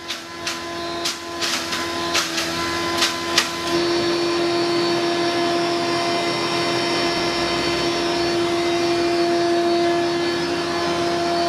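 Electric spice mill grinding dried turmeric roots: a steady machine hum that grows louder and steadier about four seconds in. During the first few seconds there are irregular sharp clicks and knocks as the hard roots are fed in.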